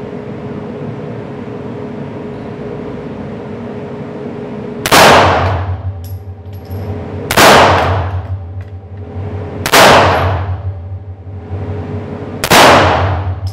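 Four single 9mm shots from a Bersa Thunder Pro pistol in a Delta Titan carbine conversion kit, slow aimed fire about two and a half seconds apart, the first about five seconds in. Each shot is loud and echoes off the walls of an indoor range.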